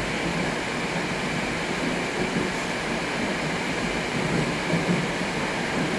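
81-765 "Moskva" metro train running, heard from inside the car: a steady rolling noise of the train in motion, with no breaks.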